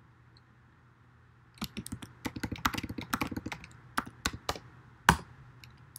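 Typing on a computer keyboard: after a short pause, a quick run of keystrokes for about three seconds, then one louder single keystroke about five seconds in.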